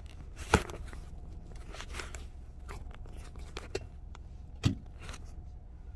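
Rustling, scraping and clicking of things being handled inside a car, with a sharp knock about half a second in and a dull thump near the end, over the low steady hum of the idling car.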